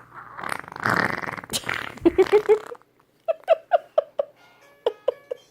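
A raspberry blown against bare skin: a fart-like buzz lasting about two seconds. It is followed by a string of short high-pitched vocal squeaks, several a second, in the second half.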